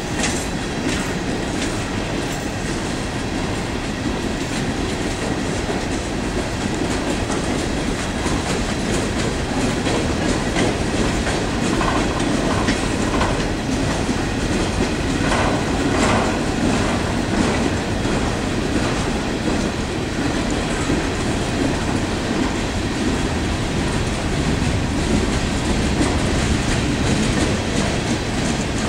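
A freight train of empty steel coal cars rolling past, with the steady rumble of the cars and wheels clacking over rail joints.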